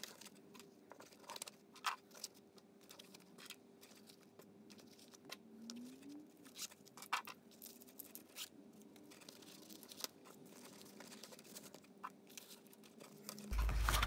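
Quiet, scattered clicks and rustles of pens, pencils and small items being handled and slid into the elastic loops and zippered pocket of a nylon tool roll, over a faint steady hum.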